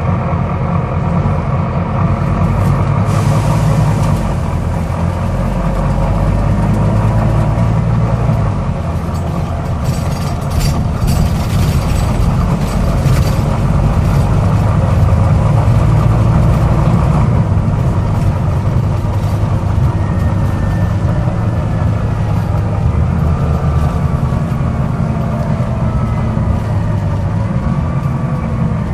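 Volvo B9TL double-decker bus's diesel engine and driveline running on the move, with a heavy low rumble. Short sharp clicks and hisses come in a cluster about three seconds in and again through the middle stretch, and the engine note glides as the bus changes speed.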